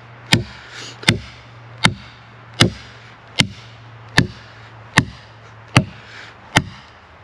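Wooden stake being pounded into the ground with a hammer: about nine sharp, evenly paced blows, a little under a second apart.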